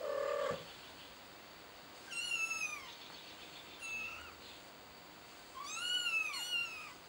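Kitten mewing: a short lower call at the start, then three high, thin mews about two, four and six seconds in, the last one the longest.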